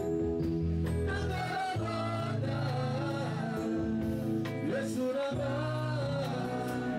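Gospel worship singing by a congregation over long held bass and keyboard notes.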